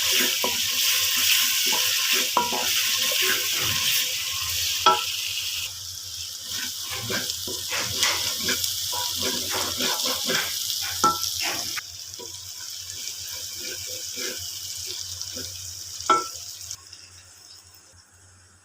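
Stuffed bitter gourds frying in oil, sizzling, with a spatula stirring and knocking against the pan. The sizzle weakens in steps and has nearly died away near the end.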